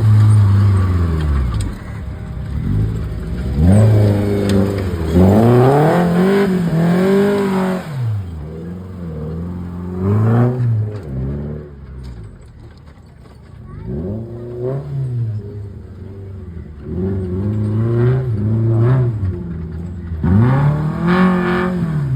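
Off-road jeep engine revving hard again and again, its pitch climbing and falling with each burst of throttle, with a short lull about halfway through.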